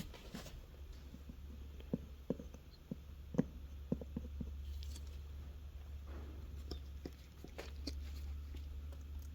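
A few faint, short clicks and knocks of handling, scattered irregularly over a low steady hum.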